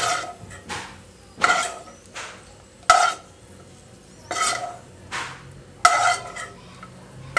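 A spoon scraping fried cashews and raisins out of a nonstick pan and onto a steel plate. There are about eight quick scrapes and clinks, several ending in a short ring from the metal.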